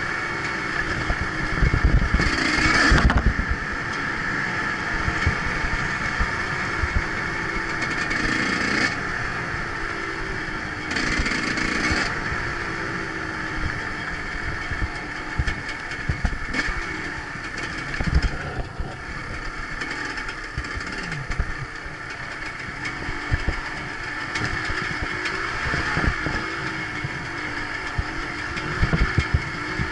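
Off-road motorcycle engine running under way, its pitch rising and falling with the throttle, with several louder bursts of revving and occasional low knocks from the bike riding over the rough track.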